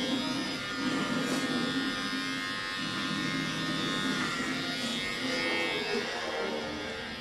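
Electric hair clippers buzzing steadily while cutting a boy's hair.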